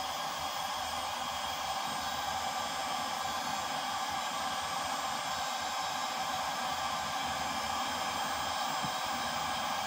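Electric heat gun running steadily, its fan blowing a continuous rush of hot air.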